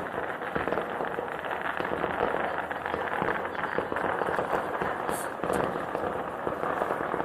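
Fireworks crackling in a dense, continuous stream of small sharp pops, with a brief high hiss about five seconds in.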